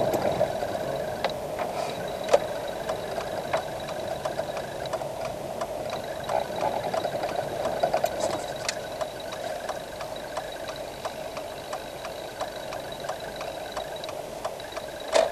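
Car engine running steadily at low speed, heard from inside the cabin, with light ticks scattered through it.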